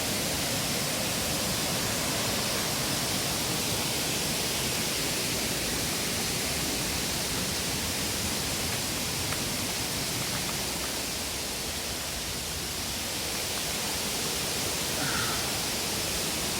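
Steady rushing of water from a tiered waterfall, an even hiss with no breaks.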